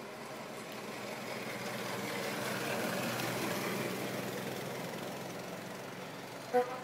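A vehicle running, growing louder to a peak about three seconds in and then fading again. A short sharp beep comes near the end.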